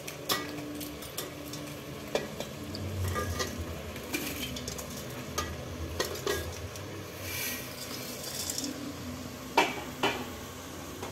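Steel ladle clinking and scraping against a steel pot as blocks of dry instant noodles go in, a scattering of sharp clicks with the two loudest near the end. A low sizzle of frying onion, capsicum and tomato runs underneath.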